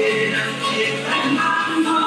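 Latin American dance music with singing.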